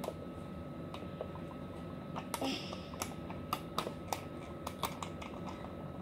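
Light, irregular clicks and taps of plastic on plastic as a small decoration is fitted onto the top of a white plastic toy bird cage.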